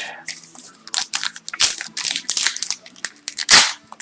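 Foil wrapper of an Upper Deck hockey card pack crinkling and tearing as it is ripped open, in a run of quick rustles with the loudest near the end.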